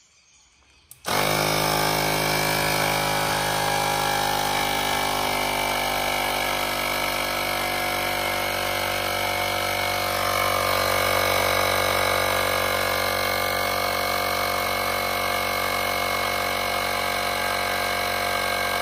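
Portable electric tyre inflator (small air compressor) running steadily, pumping up a motorcycle's front tyre from about 30 psi toward 33–34 psi; it starts about a second in.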